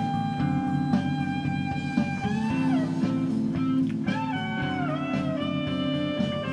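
Background music: a blues-style guitar plays long, sustained notes that bend in pitch, over a steady repeating bass and rhythm pattern.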